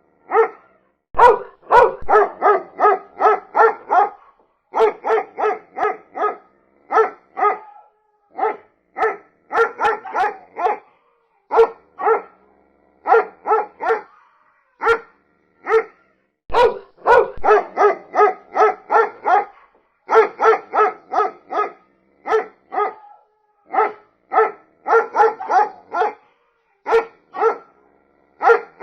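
Dog barking in quick runs of several barks, about three or four a second, with short pauses between the runs.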